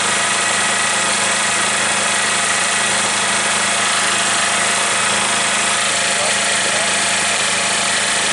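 Bohmer-AG 2700 W petrol generator's small engine running steadily, a smooth even hum without changes in speed.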